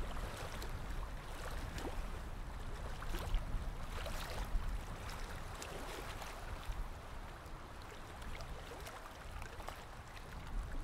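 TwoTrees TTS-55 diode laser engraver running while it engraves denim: a steady rushing whir with a low rumble and scattered faint clicks.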